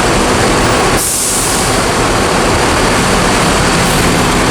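Loud, steady machinery drone filling a ferry's enclosed vehicle deck, from ship and parked bus engines running, with a short hiss about a second in.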